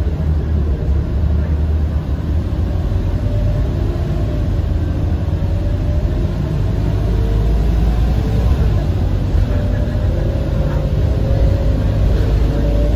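Scania K230UB single-deck bus in motion, its five-cylinder diesel engine and drivetrain giving a steady low rumble. A whine rises in pitch over the second half as the bus picks up speed.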